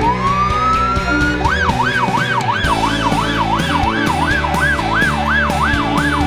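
Electronic vehicle siren: a rising wail that switches, about a second and a half in, to a fast yelp sweeping up and down a little under three times a second.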